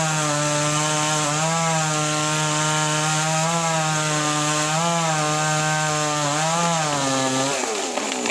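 Two-stroke chainsaw with a 22-inch bar running flat out in a cut, its engine note dipping and recovering several times as the load changes. About seven and a half seconds in, the revs drop away.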